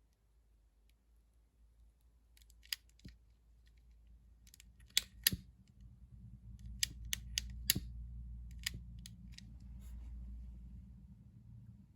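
Scissors snipping heat-shrink tubing: a series of short, sharp clicks, several close together, with a low steady rumble underneath from about five seconds in.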